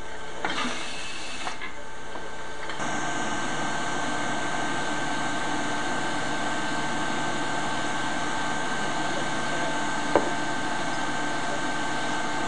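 Steady mechanical hum and hiss of food-filling machinery, with a short hiss and two knocks in the first two seconds and the sound changing at a cut near three seconds. A single sharp click comes about ten seconds in.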